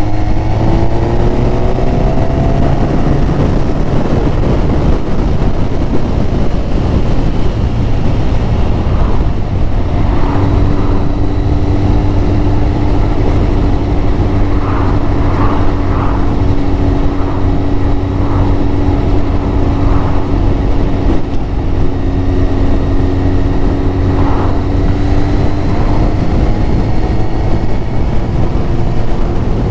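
Yamaha YZF1000R Thunderace's inline-four engine running under way, with heavy wind rush over the microphone. The engine note falls over the first couple of seconds, then holds steady from about ten seconds in.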